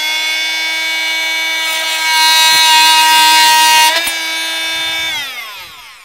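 Rockwell Sonicrafter X2 oscillating multi-tool running with a steady high whine, its blade plunge-cutting into a wooden board from about two seconds in to four, which makes the sound louder and harsher. Near the end the motor is switched off and winds down, falling in pitch until it stops.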